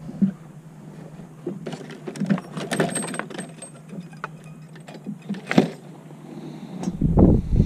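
Scattered clicks and rattles of fishing gear and the landing net being handled on a boat's carpeted deck, thickest about two to three seconds in, with a single sharp knock about five and a half seconds in and a low rumble near the end.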